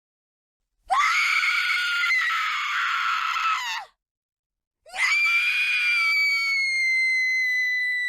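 A woman screaming in terror: two long, high-pitched screams, the second starting about a second after the first ends and sliding slightly down in pitch.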